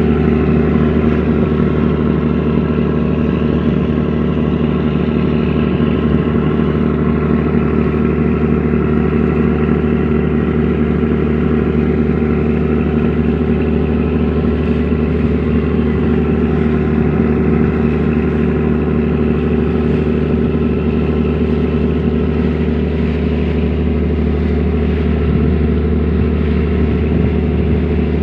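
A purse seine fishing boat's onboard diesel engine running steadily, a loud, even, unchanging drone.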